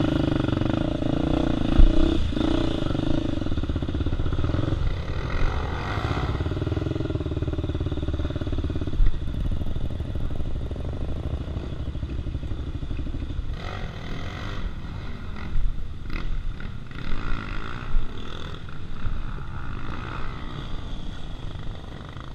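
Single-cylinder trail-bike engine, a Honda Tornado bored to 293 cc, running at low revs while riding a rough grassy trail, its note shifting a few times with the throttle. Several sharp knocks and clatter from the bike over bumps.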